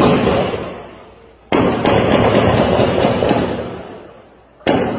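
Gunfire with a long echoing tail after each report: a shot right at the start, a rapid string of several shots from about a second and a half in, and another single shot near the end.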